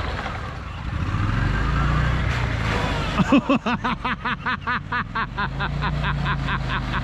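Off-road vehicle engine running steadily at low revs. From about three seconds in, a rhythmic pitched squeak joins it, repeating about five times a second.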